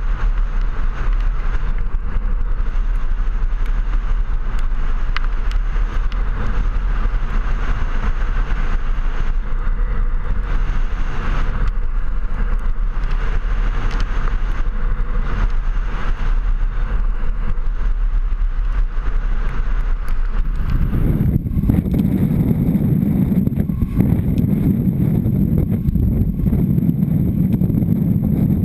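Kite buggy rolling fast over beach sand: steady rush of wind on the camera with the buggy's rolling rumble and small clicks and rattles. About twenty seconds in the sound switches to a deeper, heavier wind buffeting.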